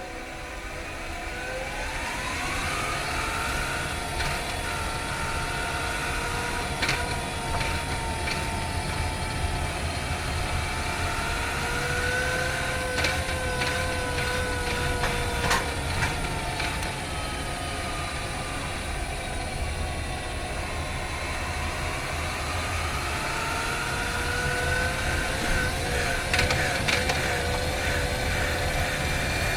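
2019 Honda Freed Hybrid's drivetrain heard from inside the engine bay while driving: a whine that climbs in pitch as the car pulls away, wavers and falls back with speed, and climbs again near the end, over a steady low rumble. A few sharp clicks and ticks come through along the way.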